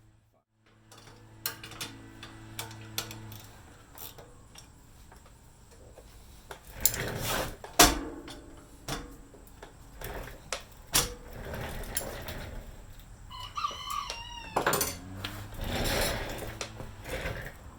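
Hand tools clicking and clanking on metal while the ladder's mounting bolts and lock nuts are snugged up, with one sharp clank a little before halfway. A rooster crows once, about thirteen seconds in.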